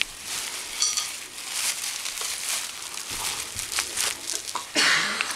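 Plastic bubble wrap crinkling and crackling as a small child handles and wraps with it, with many sharp little clicks and a louder rustle near the end.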